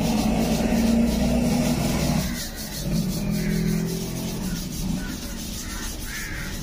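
A motor vehicle engine running close by, loudest for the first two seconds and then fading away, over repeated scrubbing strokes on a wet bamboo tube.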